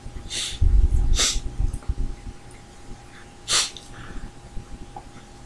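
A man sniffling sharply through his nose three times, with breathing between.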